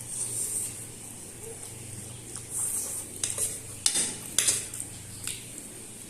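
Cutlery clinking and scraping against a plate while eating Maggi instant noodles, with a handful of sharp clicks in the middle, over a low steady hum.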